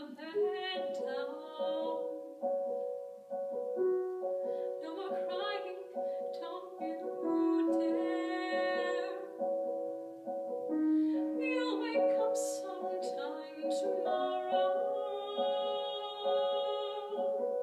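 A young female singer performing a musical-theatre song, holding long notes with vibrato, over piano accompaniment playing evenly repeated chords.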